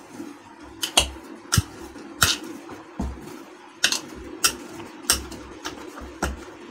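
Dough being kneaded by hand in a bowl: irregular knocks and clicks against the bowl every half second or so, with dull thuds as the dough is pressed down, over a steady low hum.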